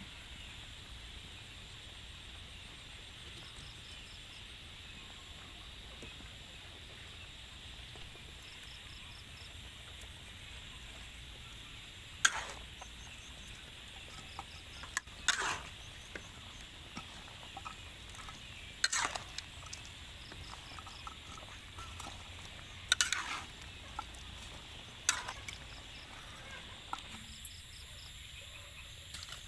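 Domestic poultry calling: about six short, loud calls scattered over a steady background hiss.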